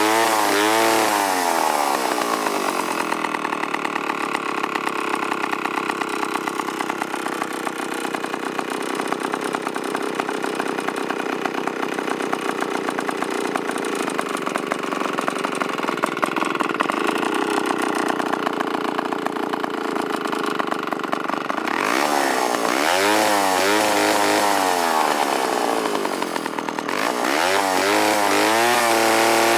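A vintage IEL HA/HB 85cc two-stroke chainsaw engine running. It is blipped at first, then held at high speed for about twenty seconds. It is then revved up and down several times and settles to a steadier, lower idle near the end.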